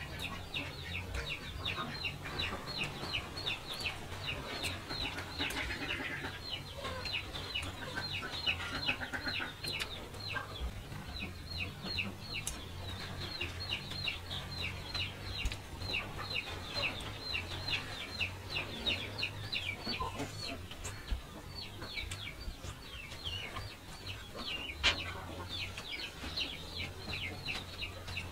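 A bird chirping steadily: short, high notes, each falling in pitch, repeated evenly about three times a second. There is one sharp click near the end.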